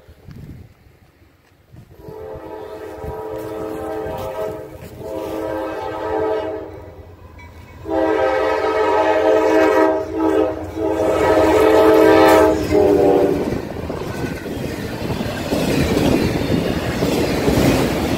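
Freight locomotive's air horn sounding for a grade crossing as the train approaches: two long blasts, then a louder blast about five seconds long that stops about thirteen seconds in. The passing freight cars' wheels then rumble and clatter on the rails.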